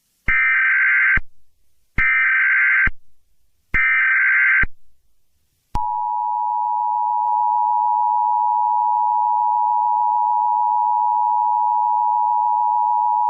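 Emergency Alert System test signal. It opens with three bursts of about a second each of SAME digital header tones. About six seconds in, the steady two-tone EAS attention signal (853 and 960 Hz) starts and holds. Together they announce an emergency alert, here a Required Monthly Test.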